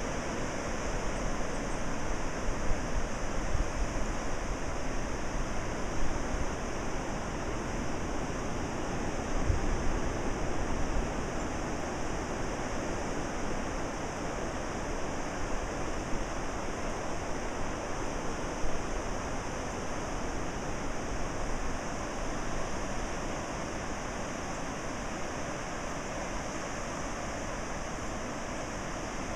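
Ocean surf breaking below the cliffs: a steady, even wash of waves, with a few brief louder bumps along the way.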